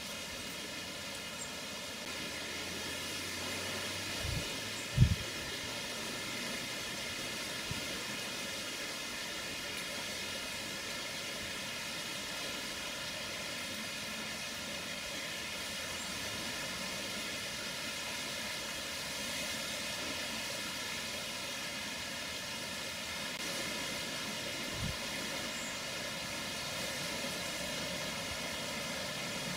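Steady outdoor background hiss, broken by a few brief low thumps, the loudest about five seconds in.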